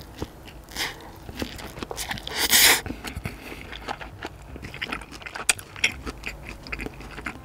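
Slurping and chewing spicy stir-fried instant noodles: a couple of quick slurps, a long loud slurp about two and a half seconds in, then wet chewing with many small mouth clicks.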